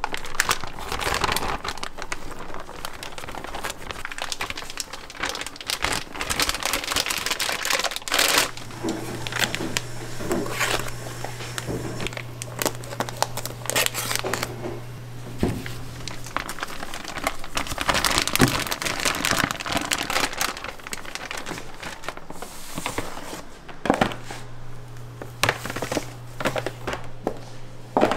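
Thick plastic food bags crinkling and rustling as they are handled and emptied into plastic tubs, with scissors snipping through the plastic. A low steady hum comes in about a third of the way through, stops past the middle, and returns near the end.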